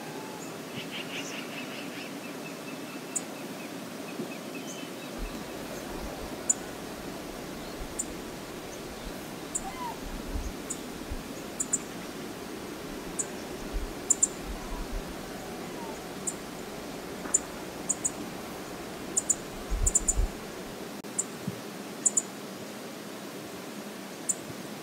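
Steady rush of river water with many short high ticks scattered throughout, a brief bird call near the start, and occasional low thumps.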